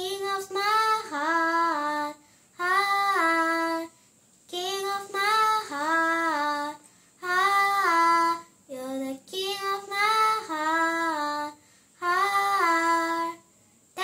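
A girl singing alone without accompaniment: short melodic phrases of one to two seconds, each stepping up in pitch and then falling back, with brief breaths between them.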